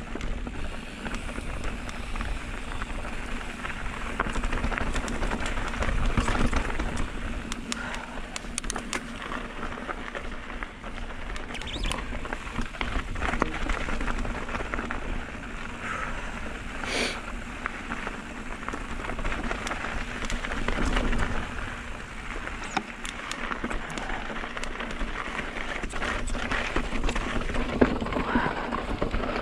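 Mountain bike riding over a dirt and rock trail: tyres crunching over loose ground and the bike rattling with many small clicks, with wind rumbling on the microphone.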